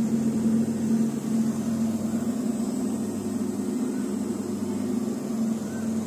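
Samsung AI Ecobubble 8 kg front-load washing machine in its final high-speed spin to wring the clothes dry, the drum spinning with a steady hum.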